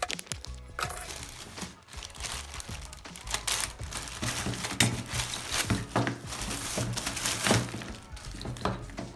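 Handling noise: irregular crinkling and scraping with a series of sharp knocks, and a low hum joining about three seconds in.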